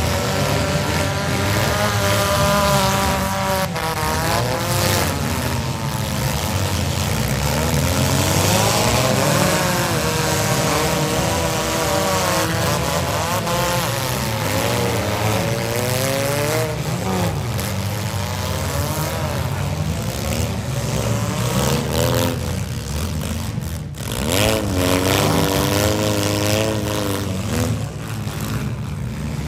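Several demolition-derby compact-car engines revving hard together, their pitches rising and falling over a steady low rumble as the cars push against one another.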